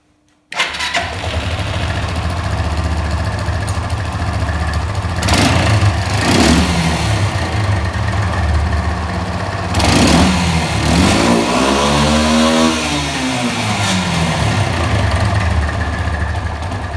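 Lifan 250–300 ATV engine starting suddenly about half a second in and running, revved briefly twice and then through a longer rise and fall. It now climbs through the revs properly on a new battery-fed CDI, the faulty old CDI having mistimed the spark and fouled the plug.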